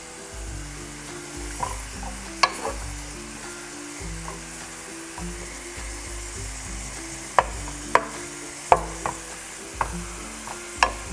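Chopped kimchi sizzling as it fries in a frying pan, stirred with a wooden spatula. The spatula knocks sharply against the pan once early and several times in the second half.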